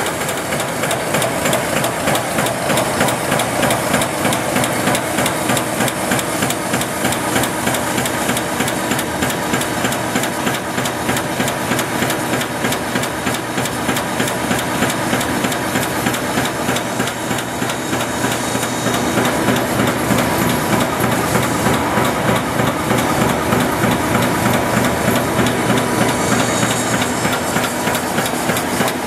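Iowa-style high-speed barbed wire machine running at speed: a fast, continuous mechanical clatter over a steady hiss.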